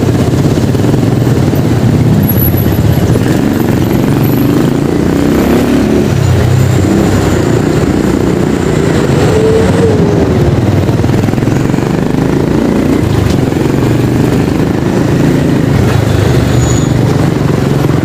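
Motorcycle engine running at low speed in slow, congested city traffic, mixed with the engines of the surrounding cars, motorcycles and trucks. The engine pitch rises and falls once near the middle.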